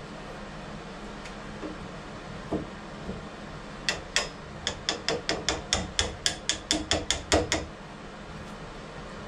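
Wood chisel being struck into the edge of a thin hollow-core door, deepening the latch-plate mortise. There are two sharp taps about four seconds in, then a quick even run of about five taps a second lasting roughly three seconds.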